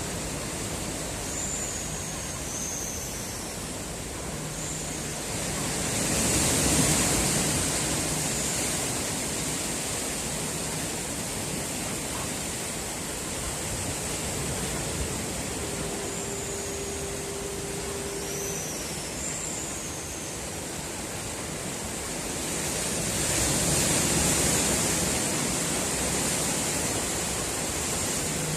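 Sea surf washing steadily against the shore, swelling louder twice as larger waves come in.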